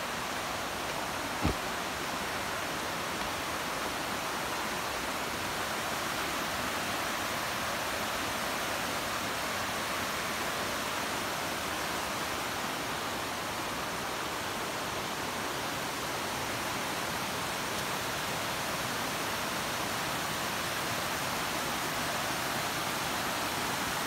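Steady rushing of a mountain creek's falling water, an even hiss with no change in level. One soft thump about a second and a half in.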